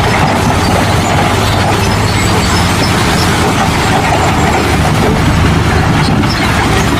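A steady, loud engine-like running sound with a constant low hum, unchanging throughout.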